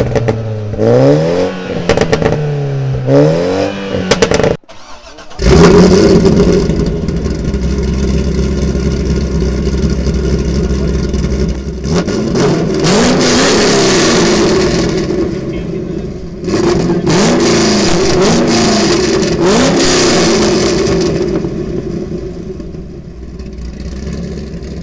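Car engines revving in repeated blips, the pitch rising and falling with each blip. About four and a half seconds in the sound breaks off abruptly and comes back as a louder, steady engine note, with several more rev blips from about 12 to 20 seconds in, fading near the end.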